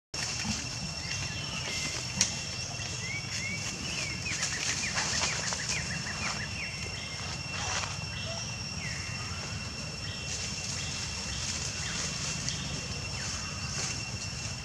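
Forest ambience: a steady high-pitched insect drone, with a quick run of short chirping calls about three to six seconds in and a few scattered chirps later.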